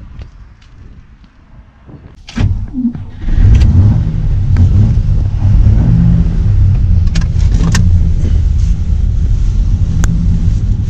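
A sharp knock about two seconds in, then, from about three seconds in, the 1950 DeSoto's flathead straight-six running steadily with the car under way, heard loud from inside the cabin with road noise.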